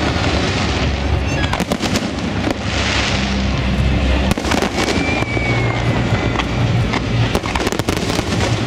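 Aerial fireworks display: dense, overlapping bangs and crackling of bursting shells. A short whistle comes about halfway through, and music plays underneath.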